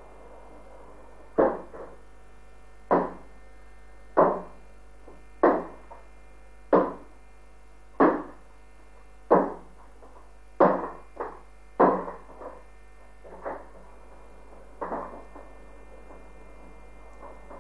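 A tower clock bell striking the hour, about a dozen strokes roughly every 1.3 seconds, each dying away quickly. It comes through an FM radio broadcast with a steady mains hum and hiss underneath.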